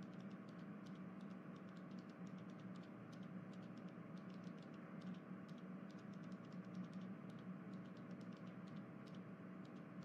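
Faint light clicks at an uneven pace, several a second, over a low steady hum.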